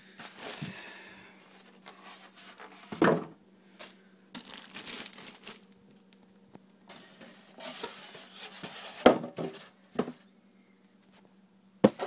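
Plastic bag crinkling and styrofoam packing rustling as they are handled and pulled off a PC case, in irregular bursts with a few sharp knocks.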